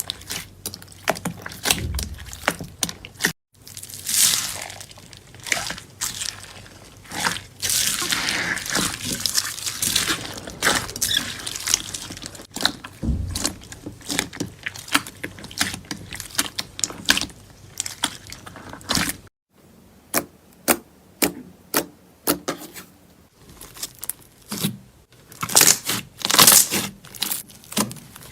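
Slime being squeezed, pressed and stretched by hand, giving rapid crackling and popping clicks with softer squelching swishes between them. The sound breaks off briefly twice, about three and a half and nineteen seconds in.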